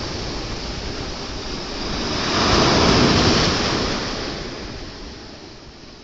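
Sea waves surging onto a shore: the wash swells to its loudest about halfway through, then draws back and fades away.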